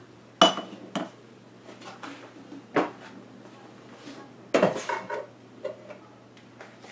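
A utensil clinking and knocking against a metal cooking pot of peach sauce, about half a dozen separate knocks; the first, about half a second in, is the loudest and rings briefly.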